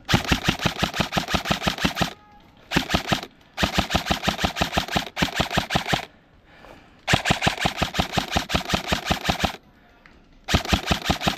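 Airsoft rifle firing full-auto in six bursts of rapid shots, about a dozen a second, with short pauses between them; the longest bursts run two to two and a half seconds.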